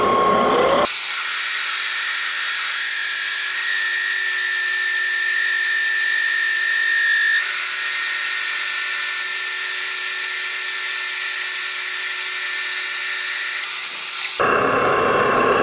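Metal lathe taking a heavy 100-thousandths-deep turning cut on a spindle blank with an insert tool: a steady, high-pitched hiss and whine of the cut, with the chip still not breaking cleanly. It starts suddenly about a second in and stops suddenly near the end.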